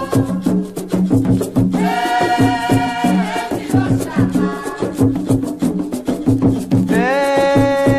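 Umbanda ponto music: a steady drum rhythm with a rattling shaker, under long held melody notes.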